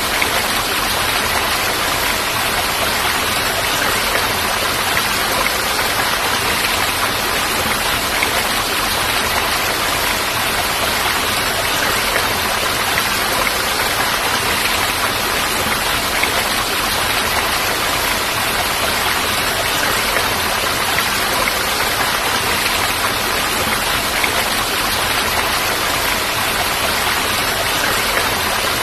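Falling water rushing in a steady, even noise that never lets up.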